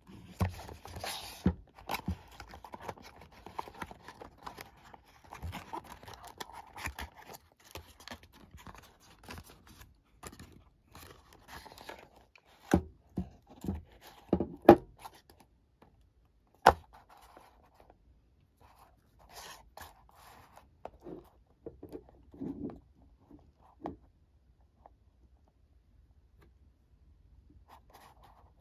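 A cardboard perfume box being opened by hand: its flaps scrape and rustle. Then come several sharp knocks and taps as the glass bottle is slid out and handled, followed by quieter handling noises.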